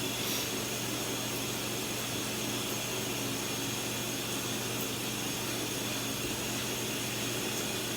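Steady machine hum with a faint high whine, unchanging throughout.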